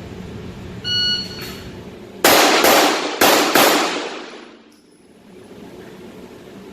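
A shot timer's start beep, then a Glock 17 9mm pistol drawn and fired four times in two quick pairs, two rounds on each of two targets.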